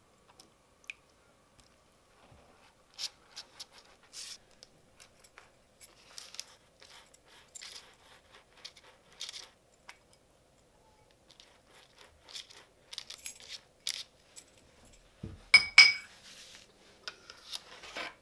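Kitchen handling sounds: scattered crisp crunches and light taps, then a loud clink about fifteen seconds in that rings briefly, a hard utensil or dish struck against another.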